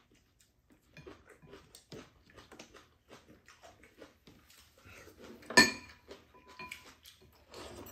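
Table-eating sounds: chopsticks and metal spoons tapping and scraping against ceramic bowls, with slurping and chewing of noodles and soup. About five and a half seconds in, a utensil strikes a bowl with a sharp clink that rings briefly.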